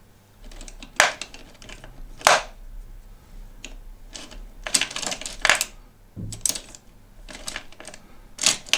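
Irregular hard clicks and clatter of make-up brushes being picked through and knocked together in a container while someone searches for an angled brush.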